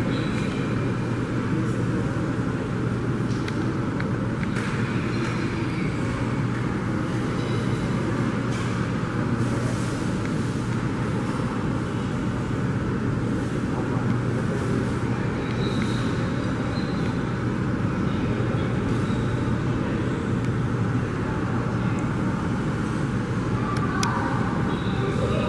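Steady low rumble of an Airbus A320-family airliner's jet engines as it moves along the runway, muffled through the terminal's window glass.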